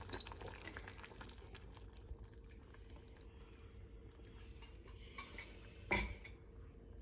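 Pot of seaweed and silken tofu soup simmering, with faint bubbling crackles that thin out after the first couple of seconds over a steady faint hum. One sharp knock about six seconds in.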